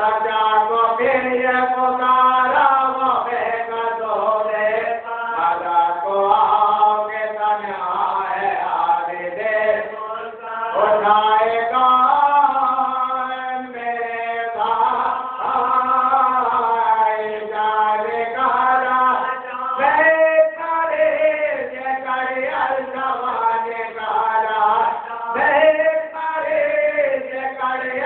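A man chanting in a sung recitation, with long held notes that bend up and down and short breaks for breath.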